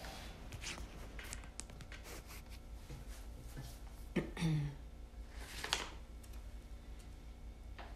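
Faint rustling and small scattered clicks of movement in a small bathroom, over a low steady hum, with two brief louder rustles about four and six seconds in.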